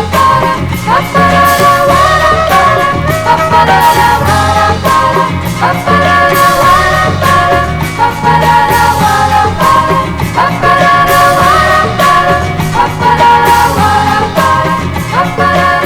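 Brazilian popular music played from a vinyl record: a melody line over bass and drums with a steady beat.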